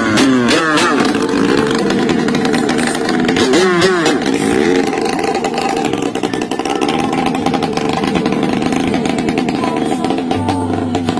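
Small long-tail boat engine running hard at high revs as the boat speeds across the water, its pitch briefly wavering up and down near the start and again about four seconds in.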